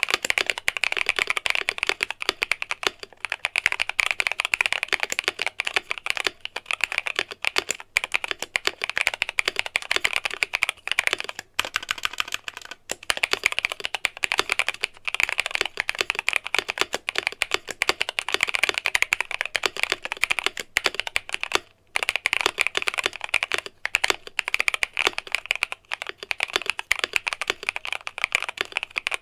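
Typing on an Akko Mod007 mechanical keyboard fitted with an FR4 plate, Green Tea switches and XDA-profile keycaps, modded with painter's tape and foam for a poppy sound. The keystrokes come fast and continuously, with a couple of brief pauses about twelve and twenty-two seconds in.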